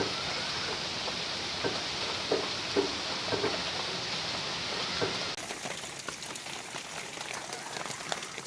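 Steady rain falling, with a few brief low sounds in the first half. About five seconds in the sound changes abruptly to a thinner rain with crisp ticks of individual drops.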